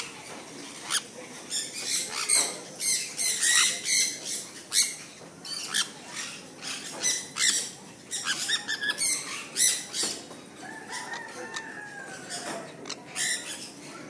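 A group of sun conures giving many short, sharp calls in quick, irregular succession.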